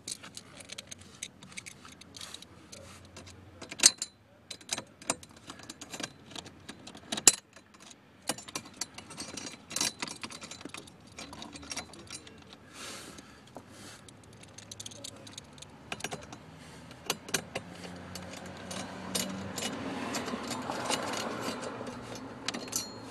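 Irregular clicks, taps and light rattles of a screwdriver backing out the Phillips screws of a plastic under-dash trim panel beneath the steering column, with two sharper knocks about four and seven seconds in and a longer rustling stretch near the end.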